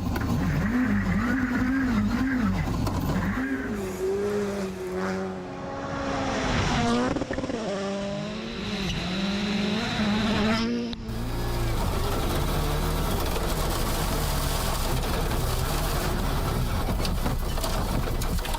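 WRC rally car engines revving hard, the pitch climbing and dropping sharply over and over as the cars shift gears and lift between corners. About eleven seconds in the sound switches abruptly to a steady rushing noise of engine and road.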